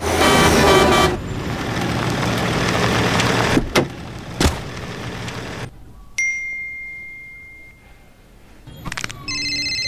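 Truck traffic going past on a highway, with two sharp knocks about four seconds in. Then a single smartphone notification ding about six seconds in, and a short app chime near the end.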